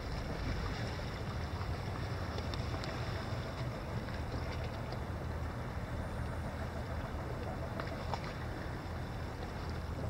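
Steady wind rumble on the microphone over the calm Caspian Sea, with small waves lapping at the shoreline rocks and a few light clicks.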